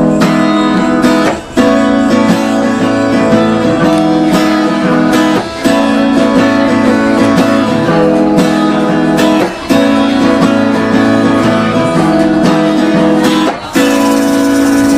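Instrumental intro of strummed acoustic guitar chords, a repeating progression with a short break about every four seconds.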